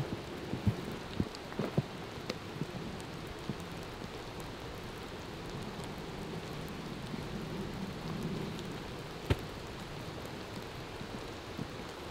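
Rain falling steadily in woodland, an even hiss with scattered sharp taps and knocks, most of them in the first few seconds and one more about nine seconds in.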